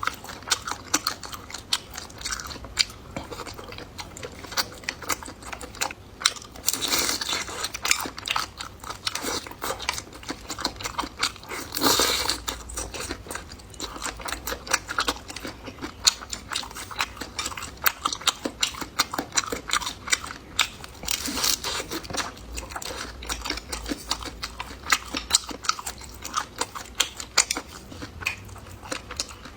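Close-miked eating: steady wet chewing and crackly crunching, with a few louder crunching bites along the way.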